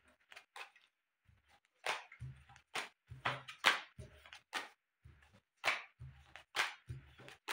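Playing cards handled on a cloth close-up mat, picked up from piles and added to a packet in the hand: a dozen or so short, irregular card clicks and snaps, some with a soft thud.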